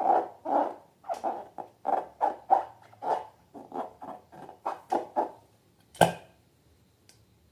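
Slime being squished and kneaded by hand in a quick run of wet squelches, about two to three a second, ending with a sharp click about six seconds in.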